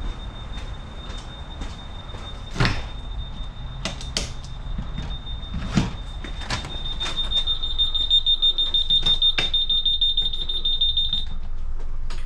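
Electronic alarm sounding a continuous high-pitched tone that grows louder about seven seconds in and cuts off about eleven seconds in. A few sharp knocks sound along the way.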